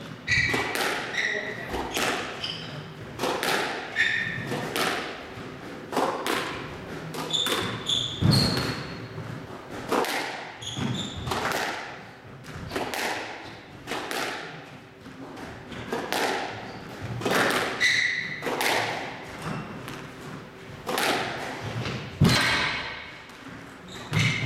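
Squash rally: the ball struck by racquets and hitting the court walls in a run of sharp impacts about once a second, each ringing briefly in the enclosed court, with short high squeaks from court shoes on the floor.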